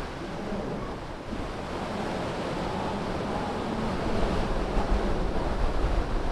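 Ocean surf breaking and washing up the sand around the concrete pilings of a pier, a steady rushing that grows louder from about four seconds in. Low wind buffeting on the microphone rumbles beneath it.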